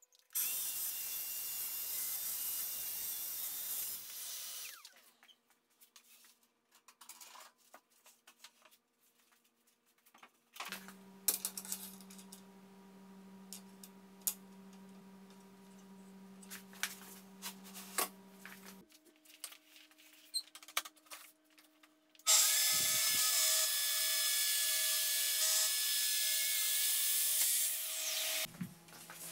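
Festool TS55 FEQ plunge track saw cutting plywood along its guide rail, twice: a cut of about four seconds at the start and a longer one of about six seconds near the end, each starting and stopping cleanly. Between the cuts come quiet clicks and taps as the aluminium parallel-guide stops are handled and set, with a faint steady low hum.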